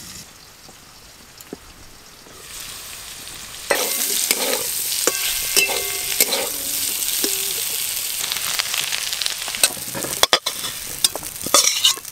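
Sliced potatoes and bitter gourd sizzling as they fry in a metal wok, stirred with a spatula that scrapes and clinks against the pan. The first few seconds are quiet, and the sizzle comes in loud about four seconds in.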